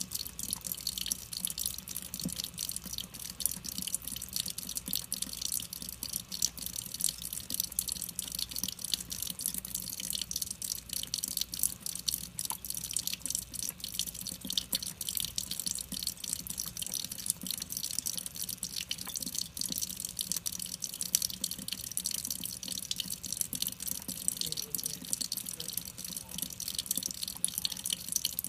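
A thin stream of water running from a kitchen faucet's pull-down spray head, spattering and dripping steadily as a cat laps at it with its tongue.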